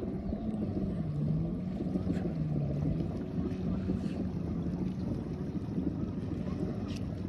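Motorboat engine droning steadily, its pitch dipping briefly twice in the first few seconds, with wind rumbling on the microphone.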